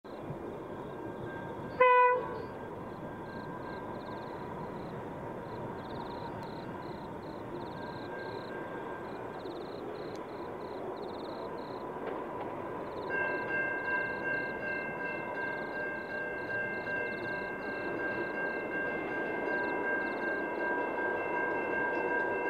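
SCT freight train led by two diesel locomotives, CSR007 and SCT006, approaching: a short horn blast about two seconds in, then engine and wagon noise growing slowly louder. About halfway through a steady high whine joins in and holds.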